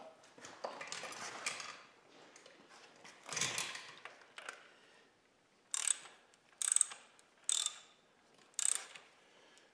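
Socket ratchet wrench clicking in four short bursts, about one a second, in the second half as a bolt is snugged down. Softer, scattered handling noises come before.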